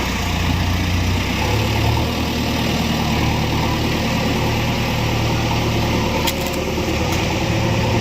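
Diesel engine of a JCB 3DX backhoe loader running steadily at a low, idle-like speed, with a deep hum that swells slightly now and then.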